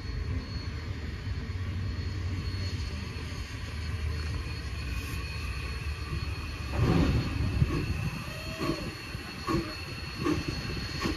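Steam locomotive moving slowly toward the listener: at first a steady low rumble, then from about seven seconds in its exhaust starts beating in loud chuffs, about two a second by the end. A brief squeal rises and falls near the middle.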